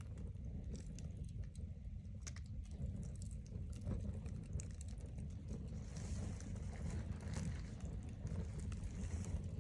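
Wood campfire crackling: many irregular sharp snaps and pops over a steady low rumble.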